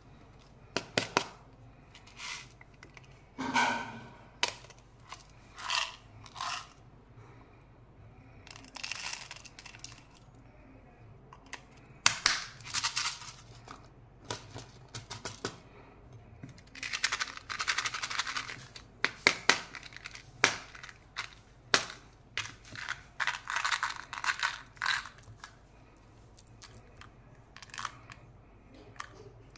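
Candy wrappers and small packets being handled and torn open: irregular bursts of crinkling and tearing with sharp clicks, separated by quiet gaps.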